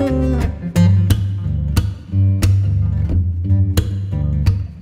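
Background music: plucked guitar notes over a steady bass line.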